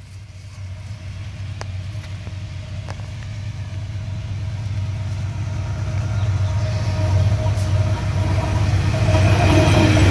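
Diesel-electric freight locomotives approaching and then passing close. A steady low engine rumble grows louder throughout, with a steady whine rising over it in the second half.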